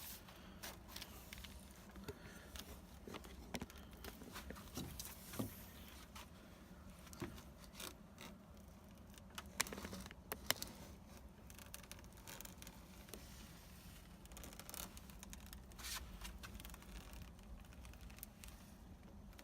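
Spline roller run along a screen door frame, pressing the spline and metal screen into the channel: irregular faint scraping and rolling strokes with scattered clicks.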